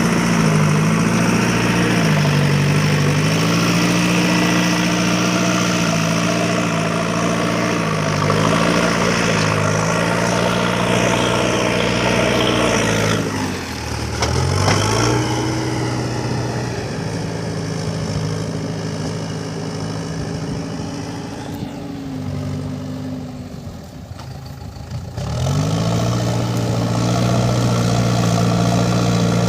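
Diesel engine of a JCB 3DX backhoe loader working, its revs sagging briefly every couple of seconds. About halfway through it drops to a low idle and then revs back up. Later it runs quieter and duller for a few seconds before picking up again.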